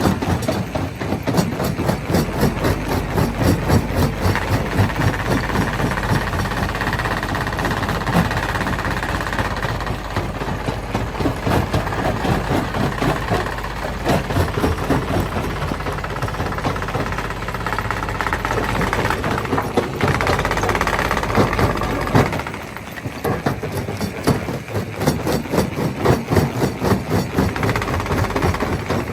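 Stone crusher machine running, with a steady mechanical din and a fast, even rattle of knocks. The low rumble dips briefly about three-quarters of the way through.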